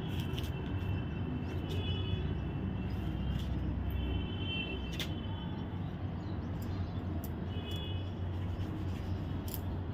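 Steady low outdoor rumble. A few faint short high chirps and light ticks sit on top of it.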